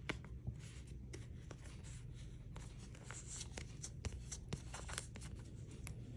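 Faint handling of trading cards: soft brushing swishes and scattered small clicks as the cards are slid and shuffled through the hands.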